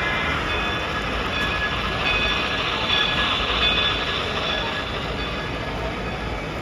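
Model passenger train running along the layout's track behind a steam-style locomotive, heard over the steady noise of a busy train-show hall.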